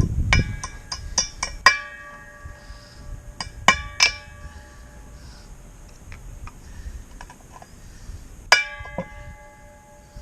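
Hammer tapping on metal as new U-joint bearing caps are seated in the driveshaft yoke, each strike ringing briefly: a quick run of about six taps, three more a couple of seconds later, and two near the end.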